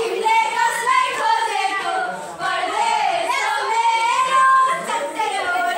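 High female voices singing a song together, with held notes that rise and fall.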